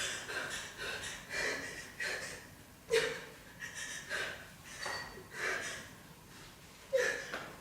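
A person's ragged breathing with sharp gasps, the strongest about three seconds in and near the end.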